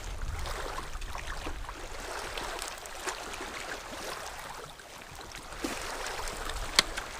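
Water lapping and trickling around a small boat, an even rushing noise with scattered light knocks and one sharp click near the end.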